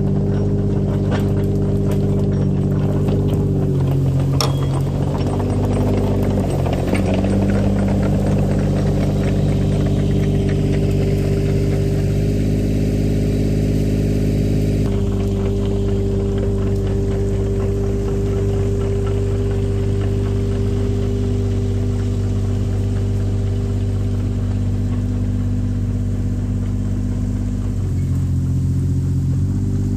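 Diesel engine of a small tracked excavator running steadily, its speed shifting up and down a few times. In the first several seconds it passes close by with some rattling from the tracks.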